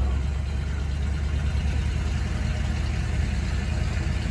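Steady low rumble of a Dodge Ram pickup's engine pulling slowly ahead at low revs, towing a dead Jeep on a chain.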